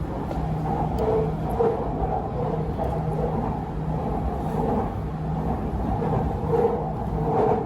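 Bangkok MRT Purple Line electric train running between stations, heard from inside the car: a steady rumble with a low hum that pulses on and off.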